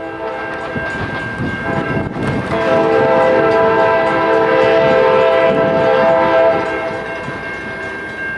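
Locomotive air horn blowing a long chord-like blast as a train approaches a grade crossing, swelling to its loudest in the middle and easing off near the end. The crossing's warning bell rings underneath while the gates come down.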